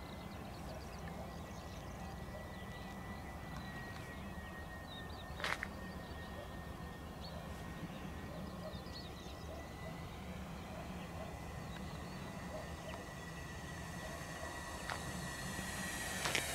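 Avios C-130 Hercules RC model's four electric motors and propellers droning faintly at a distance, with a thin steady whine, growing louder near the end as the plane comes in low. A single sharp click about five and a half seconds in.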